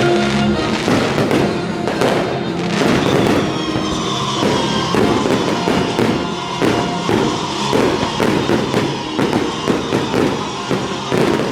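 Aerial fireworks shells bursting many times in quick succession, with music playing underneath.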